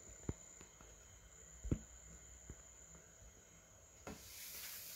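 Quiet room tone with a few faint clicks or taps, and a soft hiss starting near the end.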